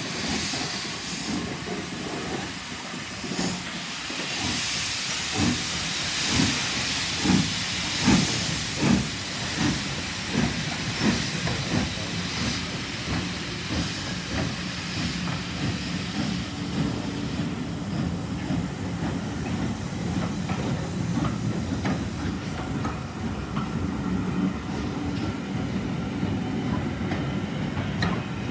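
Southern Railway S15 class 4-6-0 steam locomotive No. 825 pulling away with a train: a loud hiss of steam, then exhaust chuffs that quicken as it gets going. After that, the coaches roll past with a steady rumble and wheel clicks while the hiss dies away.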